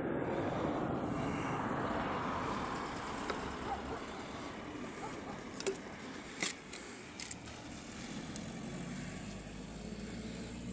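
Steady outdoor background with a distant engine drone, louder over the first few seconds and then easing, with a lower hum coming in near the end. A few light sharp clicks sound around the middle.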